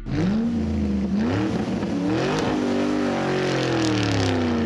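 Engine revving: it starts suddenly, its pitch swings up and down several times, then falls and settles into a steady run near the end.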